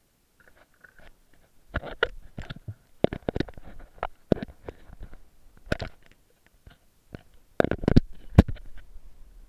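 Handling noise from an action camera in a waterproof housing on a pole: irregular knocks, clicks and rubbing as it is gripped and moved about, loudest near the end.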